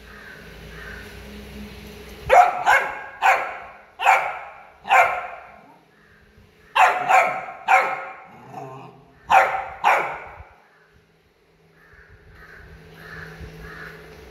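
Labrador retriever puppy barking: about ten sharp, high puppy barks in three bursts, starting about two seconds in and stopping about ten seconds in.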